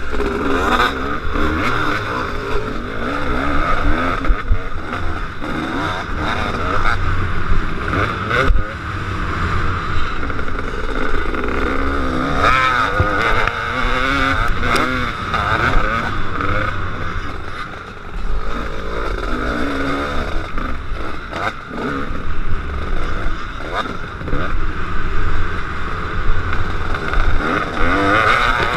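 Two-stroke KTM 250 SX motocross bike engine revving up and falling back over and over as it is ridden, with short knocks and thumps here and there.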